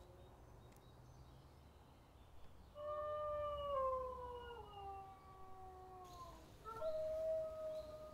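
Wolf howling twice: a long howl from about three seconds in that slides slowly down in pitch, then after a short break a second howl held on a steady pitch.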